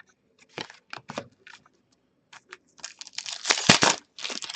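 Foil wrapper of a 2016-17 Upper Deck Series 2 hockey card pack crinkling and tearing as it is handled and opened, in irregular crackles that are busiest about three and a half seconds in.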